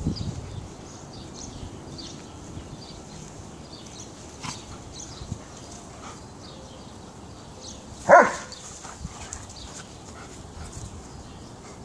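Briards playing rough, one of them giving a single sharp bark about eight seconds in.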